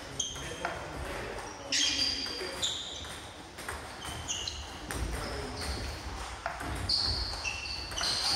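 Table tennis ball rally: a string of sharp, ringing ticks as the ball strikes the bats and the table, irregularly spaced at one to two hits a second.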